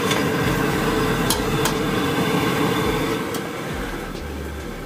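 Gas stove burner just lit, running with a steady rushing flame under the pot, with two light clicks; it quietens about three seconds in.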